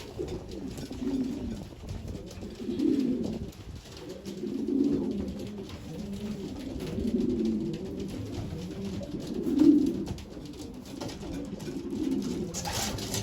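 Domestic stock pigeons cooing: a run of low cooing phrases, one every couple of seconds, the loudest about ten seconds in.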